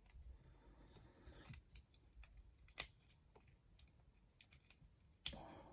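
Faint, scattered clicks and light rustling of a plastic action figure being handled as its arms are moved through their joints, with a couple of sharper clicks about three seconds in and near the end.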